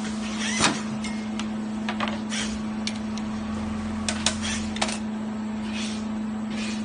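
Steady hum of a workshop edging machine, with a lower motor drone that comes in for about a second and a half past the middle, and scattered sharp clicks and knocks as a wooden tabletop is worked against the machine; the loudest knock comes about half a second in, and a quick cluster comes a little after four seconds.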